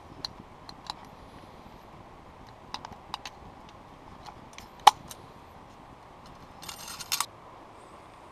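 Light metallic clinks and clicks from a red camping lantern being handled on its hanging chain, with one sharper click about five seconds in. A short rustle follows near the end.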